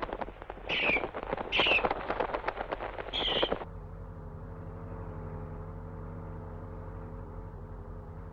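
Moth sound effect: a rapid fluttering of wings with three short, shrill, falling screeches. It stops abruptly about three and a half seconds in, and an electric fan takes over, running with a steady hum.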